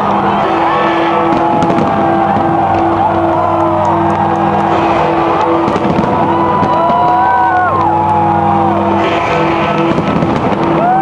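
A fireworks display: bangs and crackles over loud music with a steady repeating beat, with crowd voices rising and falling through it.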